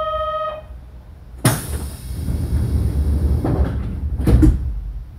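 A train's door-warning buzzer holds a steady tone, then cuts off. About a second and a half in, the pneumatic door gear lets out a sudden hiss of air that fades over a couple of seconds. Two thuds follow near the end as the doors shut.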